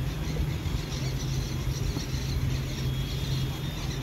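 Open-air background at a football pitch: a steady low hum with faint, distant voices and shouts.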